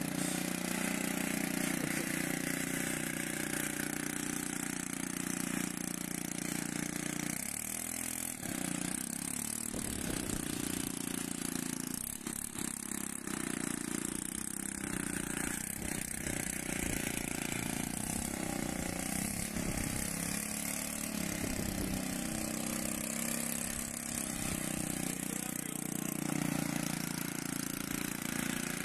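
Small scooter engine of a homemade three-wheeled cargo trike running as it is ridden, its pitch rising and falling, while burning gasoline distilled from waste plastic.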